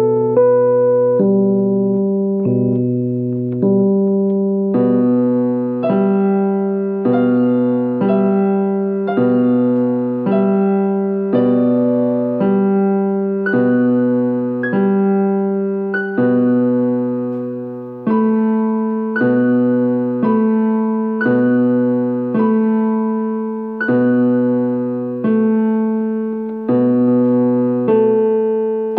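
A Yamaha electronic keyboard, on a piano sound, playing minimalist, repetitive improvised music. A low bass note and chord are struck about once a second, with a short figure of higher notes repeating over them.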